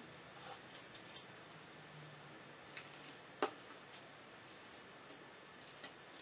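Plastic Lego bricks clicking and tapping as pieces are handled and pressed together: a few scattered sharp clicks, the loudest about three and a half seconds in.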